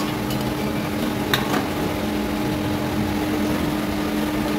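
Steady hum of kitchen ventilation and a gas burner on high flame under a wok, with one clink of the steel ladle against the wok just over a second in.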